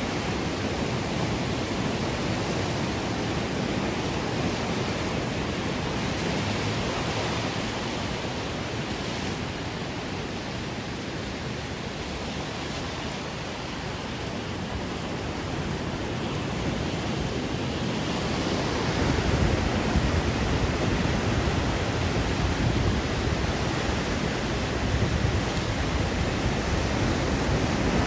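Ocean waves washing onto a shore: a steady rushing noise that grows louder and fuller about two-thirds of the way through as a bigger wave comes in.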